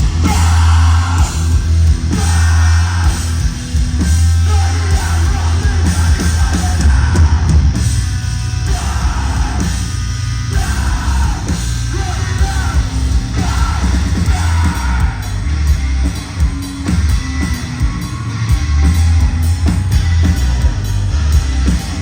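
Live post-hardcore rock band playing loud, with heavy bass and a singer yelling and singing the vocals in phrases over the band.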